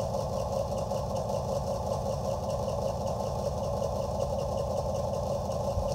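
HO-scale model locomotive's electric motor and gear drive running with a steady buzzing drone while straining against a long, heavy train that it can barely move.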